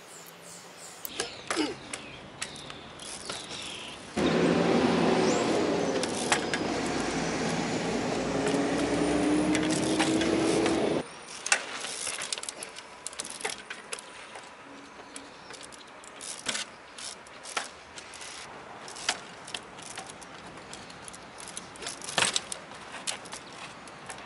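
Trials bicycle hopping between rocks: sharp knocks and clicks as the tyres land on stone. About four seconds in, a loud steady noise with a low, slowly rising tone starts abruptly and cuts off just as suddenly some seven seconds later.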